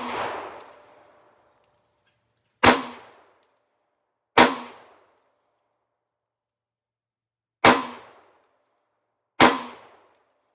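A .300 Blackout AR firing subsonic 220-grain handloads. The tail of one report rings out at the very start, then come four single gunshots in two pairs, each a sharp crack with a short echoing decay. The shots within a pair are under two seconds apart, and the pairs about three seconds apart.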